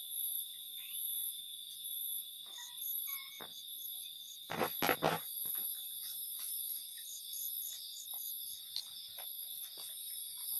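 A night chorus of crickets and other insects trilling steadily, some of them in even pulses. A brief loud noise sounds about halfway through.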